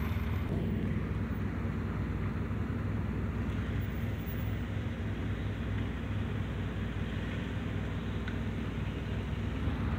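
Car engine running, heard from inside the cabin as a steady low hum.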